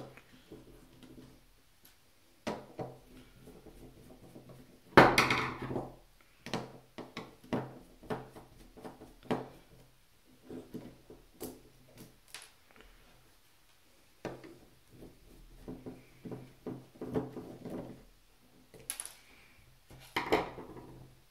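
Screwdriver backing small screws out of an airsoft gearbox's metal shell, with the screws set down one by one on a wooden tabletop: scattered light clicks and taps, a loud knock about five seconds in and another near the end.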